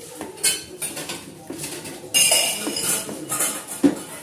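A metal spoon scraping and knocking against a metal saucepan in irregular strokes while stirring a thick chocolate mixture, with one sharper clink near the end.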